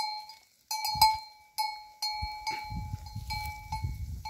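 Bell worn by a grazing sheep or goat clanking at irregular intervals, about two strikes a second, each ringing with the same clear tone that dies away before the next. A low rumble comes in about halfway through.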